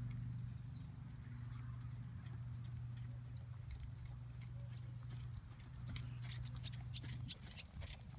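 Hoofbeats of a Quarter Horse moving under saddle on arena sand, becoming a quick, plain series of strikes in the second half as the horse draws near. A steady low hum runs underneath.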